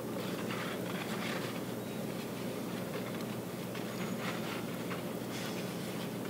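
A hand stirring and squeezing wet Ultracal 30 gypsum-cement slurry in a plastic mixing bucket, breaking up dry clumps: faint, irregular wet squishing over a steady low hum.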